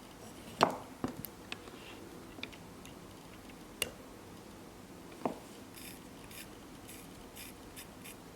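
Small sharp clicks and taps of watchmaker's tools against the watch movement while the seconds hand is fitted, about six over the first five seconds, followed by a few soft scratchy rustles.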